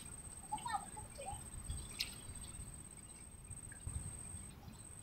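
Faint outdoor pond-side ambience: a low rumble of wind on the microphone and a steady thin high tone, with a few soft bird chirps about a second in and one sharp click about two seconds in.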